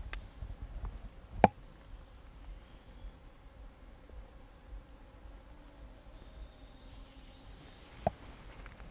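Quiet forest ambience with a faint, high, broken tone throughout. Two sharp taps stand out, a loud one about a second and a half in and a softer one near the end.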